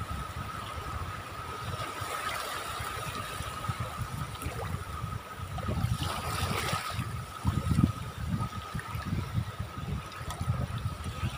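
Small sea waves washing onto the beach, with wind buffeting the microphone in gusts; one wave hisses in more strongly about six seconds in. A faint steady high whine sits underneath.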